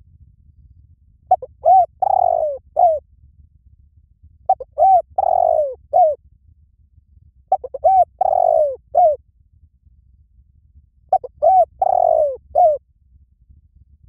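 Spotted dove cooing: four repeated phrases, each a few short coos around one longer note, about three seconds apart.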